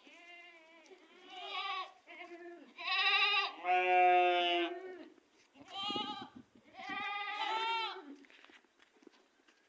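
Goats bleating, a run of about six or seven wavering bleats of differing pitch, loudest in the middle and dying away near the end.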